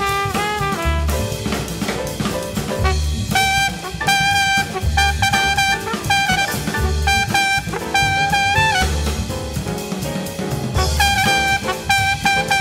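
Jazz playing on a drum kit and bass, with a melody of long held notes and a deep bass note about every two seconds.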